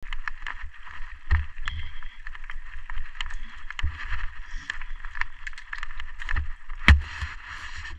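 Mountain bike rolling fast down a loose gravel trail: steady tyre hiss and crunch on the stones, broken by frequent knocks and rattles over bumps, the hardest knock about seven seconds in.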